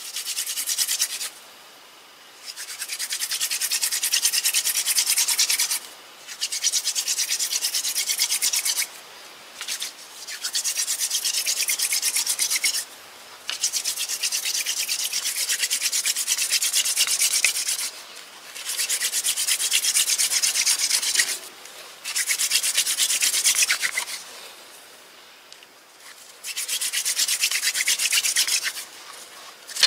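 Hand-drill friction fire-making: a thin wooden spindle spun back and forth between the palms, its tip grinding in a socket in a dry wooden hearth piece. A dry, hissing rub in about eight runs of two to four seconds each, with short breaks between them and a longer pause near the end.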